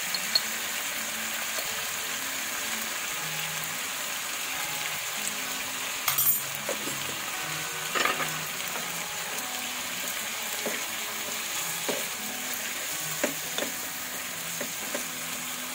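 Squid, onion and tomato sizzling in a nonstick wok: a steady frying hiss with a few sharp clicks. A wooden spatula stirs it near the end.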